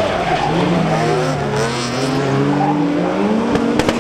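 Several rallycross cars running in a pack, their engines revving so that the notes overlap, rising and dropping as they accelerate and shift gear. A few sharp pops come near the end.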